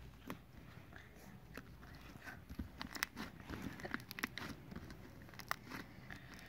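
Slime being squished and worked by hand, giving irregular small sticky clicks, pops and crackles.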